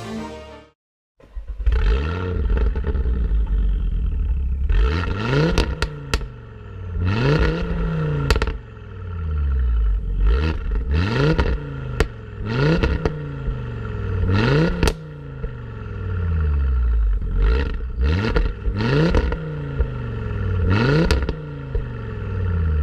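ABT-tuned Audi RS3's turbocharged 2.5-litre five-cylinder engine revving up hard again and again, starting about a second in. Each climb in pitch ends in an abrupt drop with a sharp crack.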